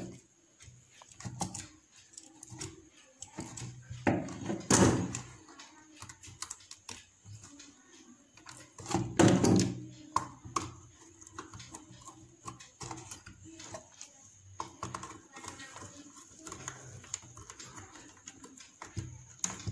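Small clicks and taps of a hand tool and wires being worked on the screw terminals of an electrical switchboard while a connection is tightened, with two louder knocks about 5 and 9 seconds in.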